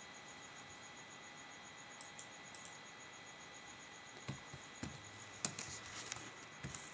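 Computer keyboard typing: a few light clicks about two seconds in, then a quick run of keystrokes from about four seconds in. Under it there is a faint steady hiss with a thin high whine.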